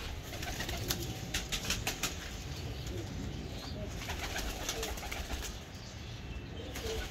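Domestic pigeons cooing in a loft, a steady low murmur with scattered sharp clicks and scuffs.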